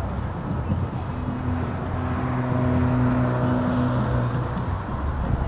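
Road traffic rumble, with one vehicle passing and its engine giving a low steady hum that rises about a second in, peaks midway and then fades.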